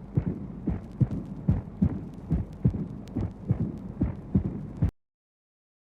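Human heart sounds through a stethoscope: regular low beats with a steady murmur filling the gaps between them. The sound cuts off suddenly near the end. The patient has infective endocarditis, and the uploader identifies the mixed murmurs as mitral regurgitation, tricuspid regurgitation and aortic stenosis.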